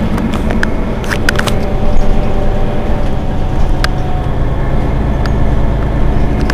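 Mercedes-Benz Citaro G C2 articulated bus's rear-mounted diesel engine idling steadily while the bus stands at a stop, with a few sharp clicks and ticks over the engine.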